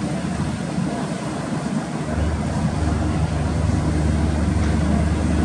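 Steady low drone of the KM Glory Mary's engines under way at sea, under a broad rushing noise of wind and water. The low hum eases for about the first two seconds, then comes back.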